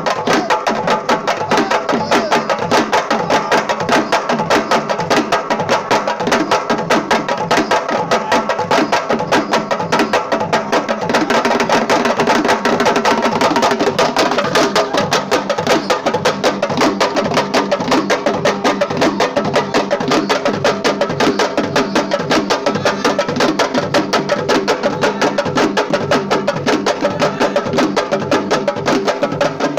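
Sabar drums played fast, a dense run of sharp hand-and-stick strokes with no break.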